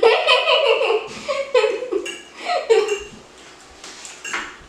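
Girls laughing in several short bursts that tail off after about three seconds, with one more brief laugh near the end.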